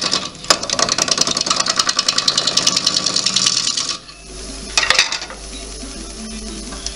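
Gouge cutting a wet cherry bowl blank spinning on a wood lathe: a dense cutting noise with a rapid rhythmic pulse. The cut stops about four seconds in, a short cut follows near five seconds, then the lathe runs on with only its motor hum.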